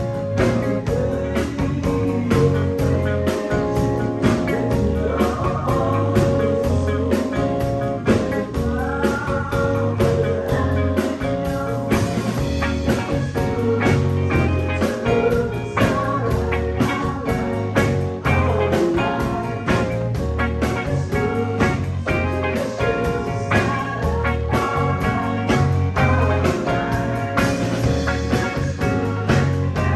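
Live band playing a blues-rock number, electric guitar over a steady bass line and drums.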